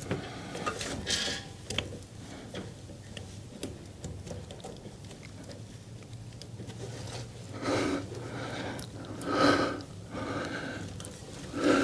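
Faint small clicks and taps of metal tools and roller-chain parts being handled while a snowblower drive chain's connecting link is worked into place. Three louder short sounds come in the second half.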